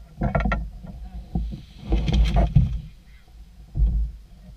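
Outrigger fishing boat being pushed and handled on the beach: three bouts of knocking and scraping from its hull and bamboo outrigger frame.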